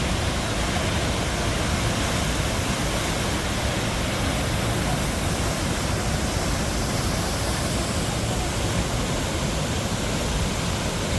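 Waterfall: a steady, unbroken rush of falling water, even across low and high pitches.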